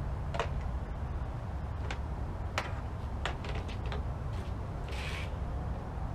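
Plastic push-pin retainer clips being pried out of a trim cover with a plastic trim removal tool: a scattered series of sharp clicks and snaps, with a short rustle about five seconds in, over a steady low rumble.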